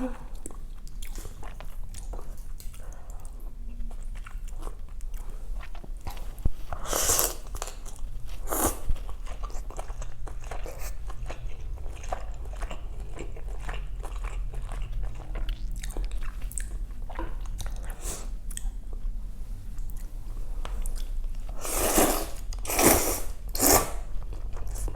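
Close-up eating sounds: a person chewing and biting food, with many small wet mouth clicks and a few louder bursts about seven and nine seconds in and again near the end.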